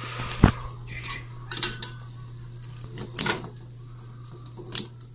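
Metal tongs clinking against a stainless steel pot and the carburetor bodies boiling in it, with several sharp, scattered clinks as the parts are picked out of the hot water.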